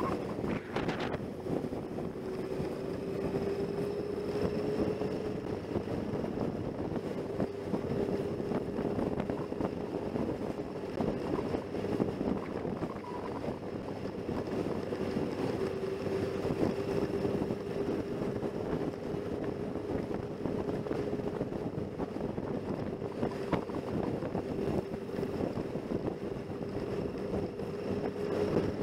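Motorcycle engine running at a steady cruise, heard from the riding bike with wind rushing over the microphone.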